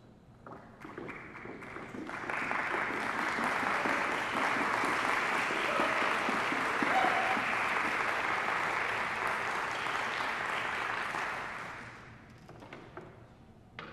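Audience applause, building up over the first two seconds, holding steady, and dying away about twelve seconds in.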